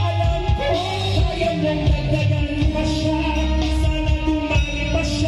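Live band playing a song through a PA system: bass guitar and electric guitar over a steady beat, with a singer's voice on a microphone.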